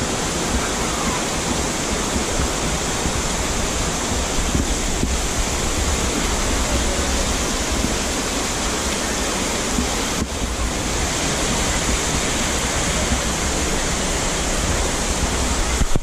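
Steady rush of falling water from small waterfalls spilling off a rock bluff into a creek pool, with a low rumble underneath.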